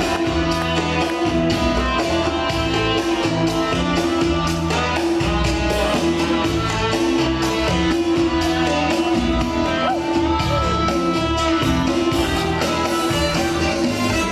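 Cha-cha dance music with a steady beat.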